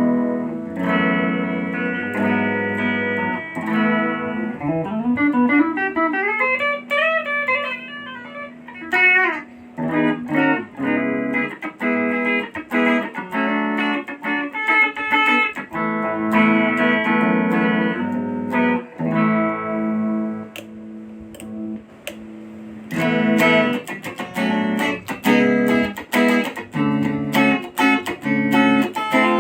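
Ibanez Gio electric guitar being played through an effect: ringing chords and quick picked notes, with a run of notes climbing and falling again a few seconds in.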